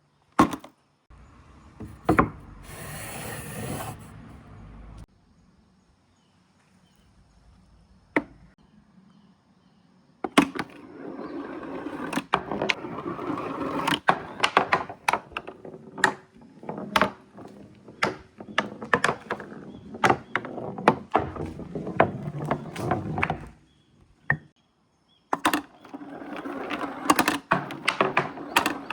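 Glass marbles (biidama) rolling and clattering through a marble run, with many sharp clicks as they hit the track and each other. A few scattered clicks and a short rattle come first, then a dense, continuous clatter starts about a third of the way in, breaks off for a moment near the end, and resumes.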